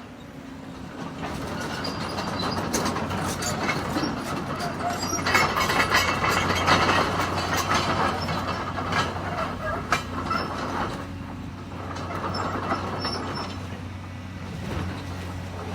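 Demolition excavator tearing into a building's structure: crunching, scraping and clattering of metal and debris over the steady run of its engine, building up about a second in, loudest in the middle and easing off near the end.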